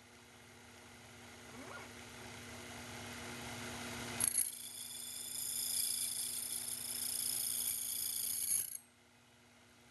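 Slitting saw on a Sherline CNC mill cutting a gear tooth: over the steady hum of the spindle motor, a loud, high-pitched ringing whine starts suddenly about four seconds in and stops abruptly near the end as the saw clears the cut.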